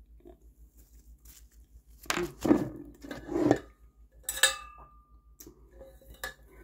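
Enamelware camping plate being handled: a spell of rustling and knocking, then one sharp clink about four seconds in that leaves the plate ringing with a clear tone for about a second, and a lighter tap near the end.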